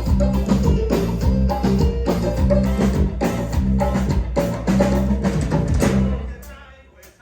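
Live band playing a cumbia medley with a steady bass line and percussion. The band stops about six seconds in, and the sound dies away.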